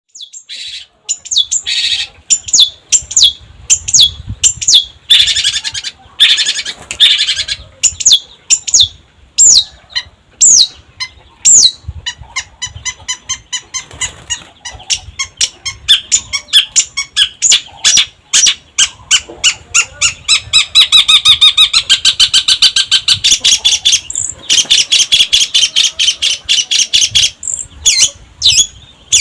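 Long-tailed shrike (cendet) singing loudly: a run of sharp, high notes slurring downward, then fast repeated chips that build into a rapid, chattering trill about two-thirds of the way through.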